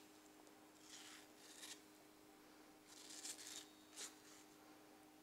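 Faint scrapes of a kitchen knife cutting soft mango flesh away from the seed: four or five short strokes over a low steady hum.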